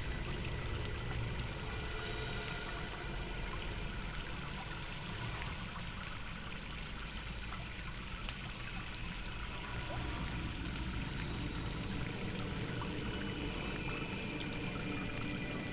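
Steady rushing, water-like sound effect with a low rumble underneath and faint scattered clicks.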